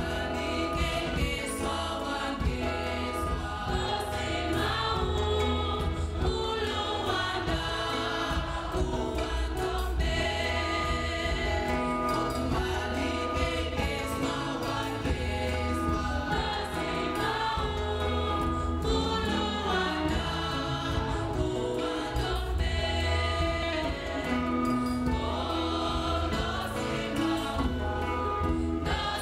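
Church choir singing a gospel hymn over instrumental backing with a deep bass line.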